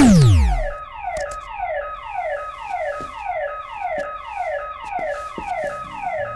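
Electronic video-game-style sound effect: a loud, fast falling pitch sweep, then an alarm-like run of short falling tones repeating about twice a second.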